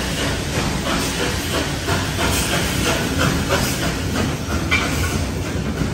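Train moving at low speed, heard from the open doorway of a carriage in a concrete underpass: a steady low rumble with a repeated clatter about three times a second, and a short high squeak about three-quarters of the way through.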